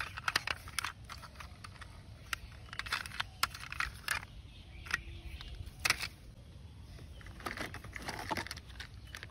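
Hard plastic toy vehicles being handled: a toy dump truck is turned over in the hands, then a hand rummages in a cardboard box of plastic toys. Scattered small clicks and knocks of plastic on plastic, a little busier near the end.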